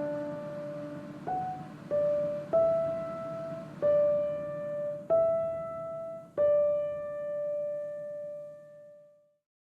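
Background piano music: slow single notes struck about once a second, each ringing and decaying, the last one fading away near the end.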